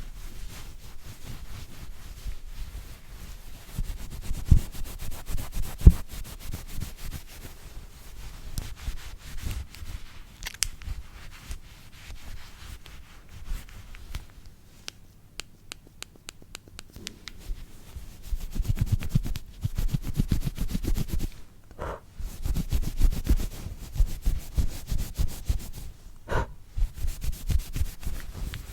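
Close-up brushing and scratching of a cleaning brush's bristles over a device's surface in quick, dense strokes, with a couple of sharper knocks about four and six seconds in.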